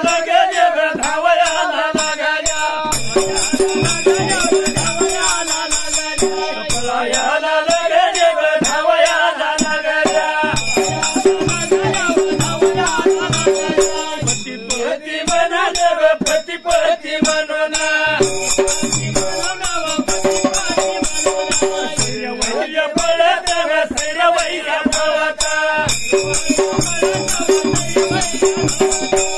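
Dhangari ovi folk singing: male voices chant the melody over a dhol drum beating a steady repeating rhythm, with small hand cymbals (tal) jingling continuously.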